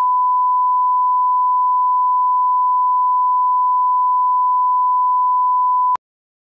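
Steady 1 kHz line-up test tone, the reference tone that goes with colour bars at the head of a video. It cuts off abruptly about six seconds in.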